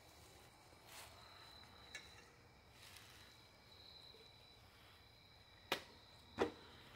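Two sharp knocks about two-thirds of a second apart near the end: a katana striking the target on top of a wooden cutting stand and knocking its top spinning off. Faint steady cricket chirring underneath.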